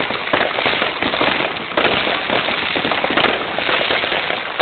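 Fireworks going off in a rapid, continuous crackle of many small bangs with no pause.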